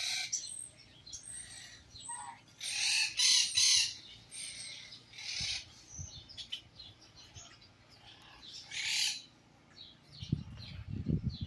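Birds calling: several short high-pitched calls, the loudest about three seconds in and another near nine seconds, with a few low thumps near the end.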